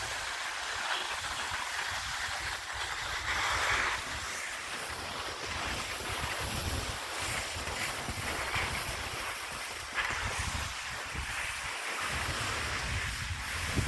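Skis sliding over packed snow in a steady hiss, with wind buffeting the microphone as the skier moves downhill.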